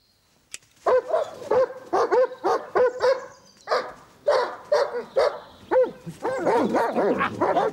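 German Shepherd dogs barking at an approaching stranger: short barks about two a second starting about a second in, turning into rapid, near-continuous barking near the end.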